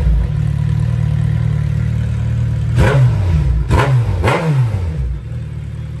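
Suzuki Hayabusa Gen3's 1340 cc inline-four running with both stock exhaust mufflers removed, giving a very bassy open-header note. It idles steadily, is blipped three times in quick succession about three seconds in, then settles back to idle.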